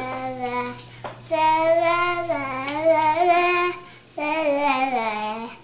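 A toddler girl singing a made-up song in long held notes that slide up and down, with short breaks about a second in and near four seconds.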